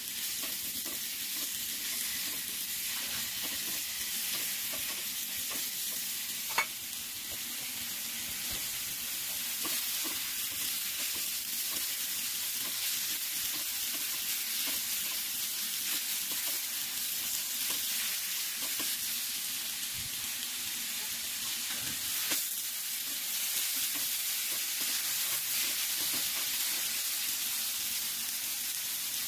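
Sliced luffa sizzling in a small pan on a gas burner while a silicone spatula stirs it, a steady frying hiss. Two short sharp clicks, one about a quarter of the way in and one about three quarters in.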